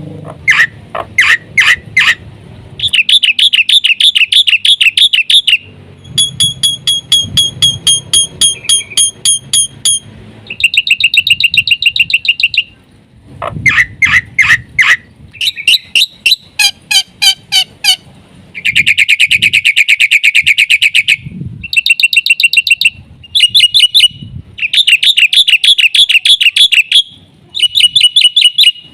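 Black-winged myna (jalak putih) singing loudly in a string of short phrases of rapid trills, chatter and whistled notes, with brief pauses between them: its varied song with mimicked 'isian' fills.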